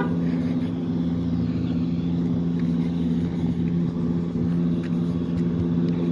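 Mack MRU grease vacuum truck running, a steady low drone with an even hum that holds the same pitch throughout.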